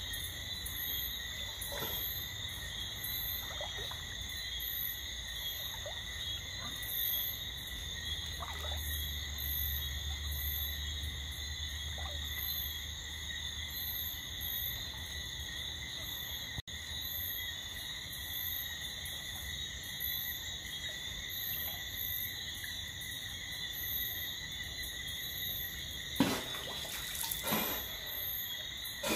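Night chorus of insects: several steady high-pitched trills layered together, with a very high chirp repeating about once a second. A low rumble comes in for a few seconds in the middle, and a couple of knocks sound near the end.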